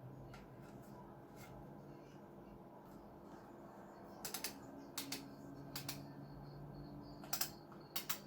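Light sharp clicks, mostly in quick pairs, five or so in the second half with fainter ones before, over a faint steady hum.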